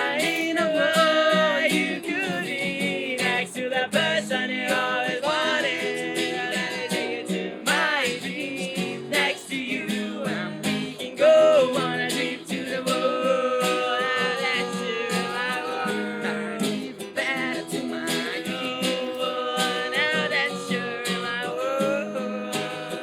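Live acoustic band music: a strummed acoustic guitar keeps a steady rhythm under a lead melody that bends and wavers.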